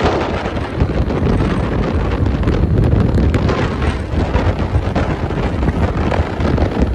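Wind buffeting the microphone of a camera filming from a moving motorcycle: a loud, steady rough rush heaviest in the low end.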